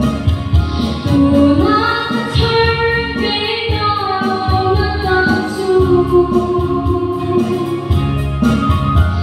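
A woman singing a gospel song into a handheld microphone, amplified through a PA, over instrumental accompaniment with a steady low beat. Her long held notes slide between pitches.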